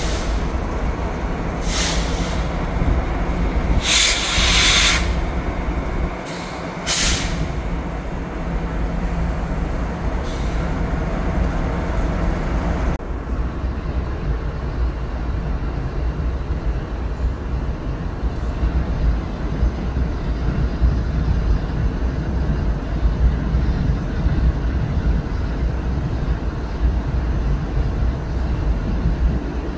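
Train air brakes hissing in several short bursts over the first seven seconds, the longest and loudest about four seconds in, over a steady low rumble from the standing train.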